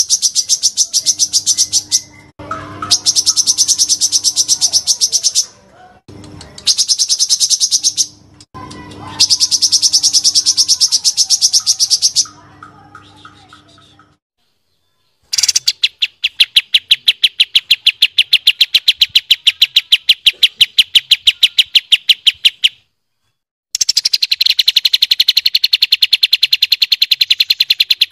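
Recorded songs of kapas tembak and cucak cungkok songbirds: loud, very fast rattling trills (the long 'tembakan' rolls prized in bird-song contests), several short bursts in the first half, then two long trills of several seconds each, broken by a short pause.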